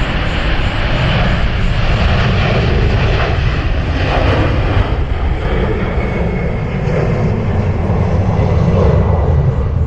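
Airliner engines running steadily and loud, with a faint high whine in the middle.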